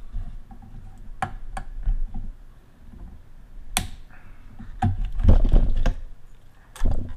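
Clicks and knocks of a PC motherboard being handled and turned over on a silicone work mat, with a sharp click about four seconds in and dull thumps near the end.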